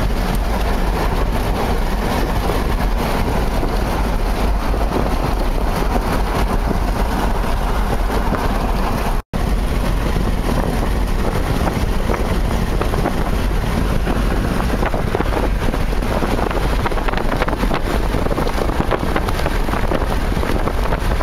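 Steady road and wind noise from a car driving along a highway, heard from inside the car, with a heavy low rumble and wind buffeting the microphone. The sound breaks off for an instant about nine seconds in.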